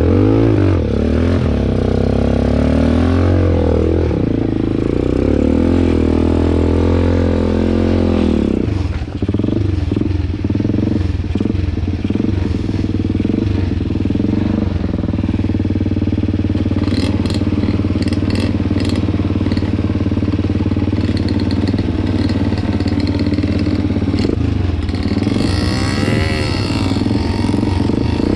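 Motorcycle engine running under way, its pitch rising and falling with the throttle for the first several seconds, then holding steadier. A few sharp clicks come about two-thirds of the way in, and there is another rise and fall in pitch near the end.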